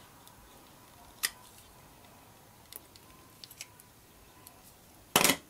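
A utility knife cutting and stripping the insulation off a short piece of wire: a few faint sharp clicks and scrapes, then a louder clack about five seconds in.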